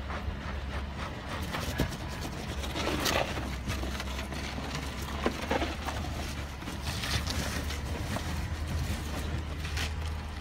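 Land Rover Discovery crawling slowly over rocks, its engine a low steady hum under irregular crunching and scraping of tyres on rock and loose stones, with a few sharper cracks along the way.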